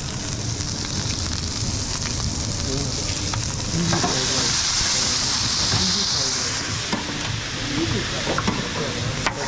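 Vegetables sizzling and frying on a hot flat-top griddle as they are stirred, with a few light taps of metal spatulas on the plate. About four seconds in, liquid is squeezed from a bottle onto the griddle and the sizzle turns louder and hissier for a couple of seconds before easing.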